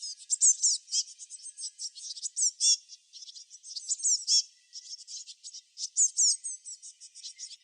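Songbirds chirping in rapid runs of high, quick slurred notes, with short lulls about three and five seconds in.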